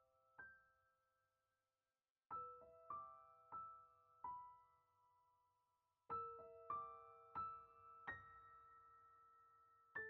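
Soft background piano music: single notes struck one after another, each ringing and fading away, with a short pause about two seconds in before the melody resumes.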